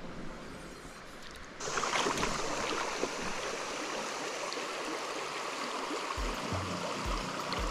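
Shallow mountain stream running over a rocky riffle: a steady rush of water that comes in suddenly about a second and a half in. Near the end, background music with a low, pulsing beat joins it.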